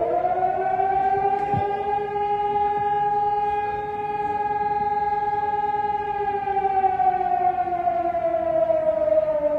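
Emergency-alert siren: two tones sounding together that finish rising, hold steady, then slowly sink in pitch from about six seconds in before cutting off abruptly.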